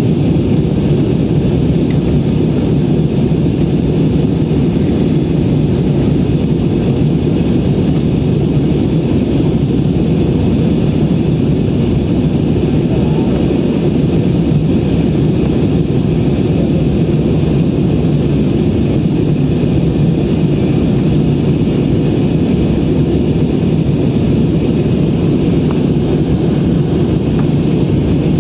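Steady noise of an airliner heard from inside the passenger cabin: engine and airflow noise as an even, loud rumble that does not change.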